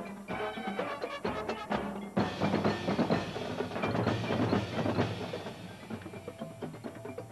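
Marching band playing its field show: brass over drums and mallet percussion, with quick rhythmic hits. About two seconds in, the full band comes in louder over a sustained low bass, then eases off near the end.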